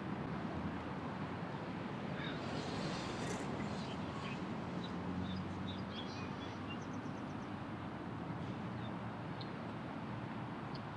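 Steady outdoor ambience: a low, even rumble with a few faint, short high chirps, likely from birds.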